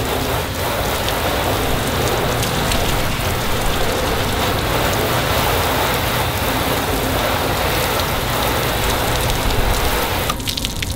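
Garden hose spray nozzle jetting water onto a painted car hood panel, rinsing off soap suds: a steady hiss and splatter of water on the metal. The spray briefly thins about ten seconds in.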